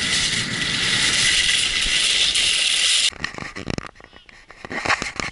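Skis hissing and scraping over packed snow on a fast downhill run, steady and loud, cutting off abruptly about three seconds in; afterwards only faint scrapes and clicks.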